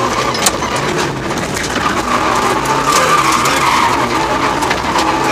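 Mitsubishi Lancer Evo VII rally car's turbocharged four-cylinder engine running under load, heard from inside the cabin, with heavy tyre and road noise. A few sharp cracks cut through, the first about half a second in.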